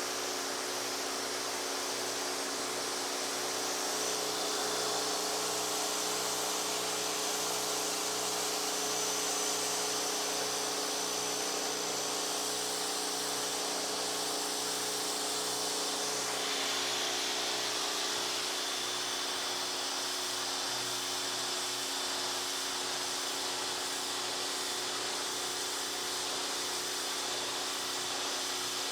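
Pressure washer running steadily: a constant motor and pump hum under the hiss of the water jet, the hiss shifting in tone about halfway through.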